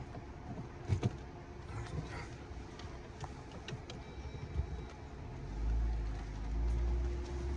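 Jeep driving slowly in four-wheel drive over a rough trail: a steady low engine hum with scattered knocks and rattles, and a deep rumble that swells about five and a half seconds in.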